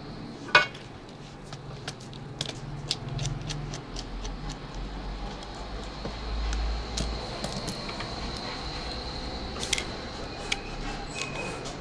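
Light clicks and taps of a precision screwdriver and fingers working on an old BlackBerry phone's plastic casing, with one sharp click about half a second in and a run of small ticks a couple of seconds later, over a low steady hum.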